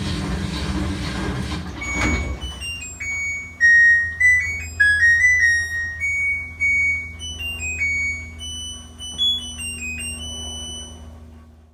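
LG WT7800 top-load washer's end-of-cycle chime: a short electronic melody of beeped notes signalling that the tub clean cycle is finished. It starts about two seconds in, after the steady running noise of the final spin stops with a click.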